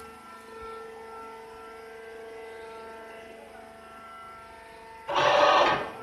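Rice husk baling machinery running with a steady hum. About five seconds in, a loud rush of noise lasts under a second.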